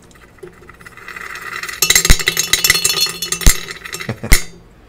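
A magnetic stir bar rattling and knocking against the bottom of a glass beaker on a 79-1 magnetic heating stirrer as the speed is turned up. It gives a fast clatter with three sharp knocks and stops suddenly near the end, when the stirrer is switched off.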